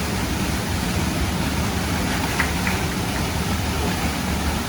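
Steady rushing roar of a waterfall, a constant deep rumble with hiss.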